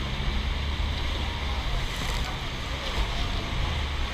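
Water rushing around a river raft under way, with wind buffeting the microphone and a steady low hum underneath.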